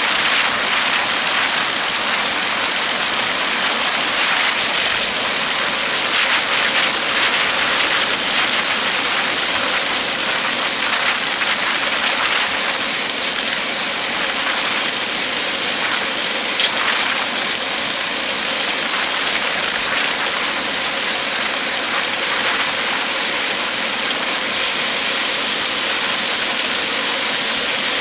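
Steady rushing hiss of wind and road noise on a bike-mounted camera on a road bike at speed, with one sharp click a little past halfway.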